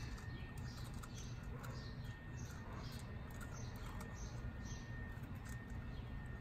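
A small bird chirping over and over, short falling chirps about twice a second, over a steady low background rumble.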